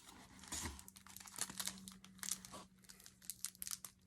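Packaging crinkling and rustling in the hands as a box of cigars is unpacked: an irregular run of short, faint crackles.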